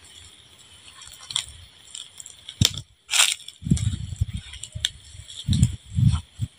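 Dull low thumps and rustles of handling noise as the camera is carried along, starting about halfway in, after a sharp click and a brief rustle.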